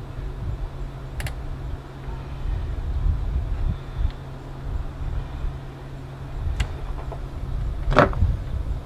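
Hand work in a car engine bay: a few sharp metal clicks and knocks, the loudest about 8 seconds in, over a steady low rumble.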